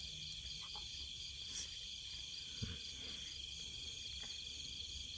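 Crickets chirping in a faint, steady, evenly pulsing chorus, with a soft knock about halfway through.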